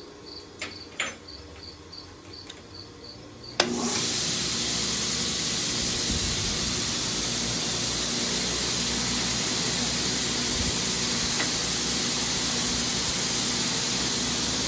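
Belt sander switched on with a sudden start about three and a half seconds in, then running steadily with a loud hiss of the abrasive belt over a low motor hum. Before it starts, faint cricket chirps and a few light clicks.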